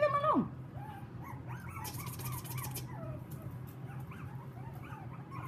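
Young puppies, about twelve weeks old, yelping and whining while they play: one loud yelp right at the start, then a string of short, high squeaky whimpers and yips.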